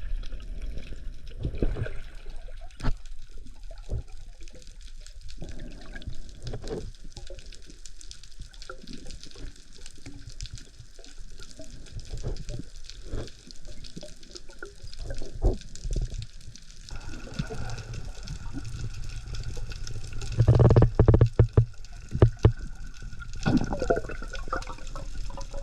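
Water sloshing and splashing with many scattered knocks and bumps, as picked up by a camera in the sea. There is a louder stretch of low rumbling about three-quarters of the way through.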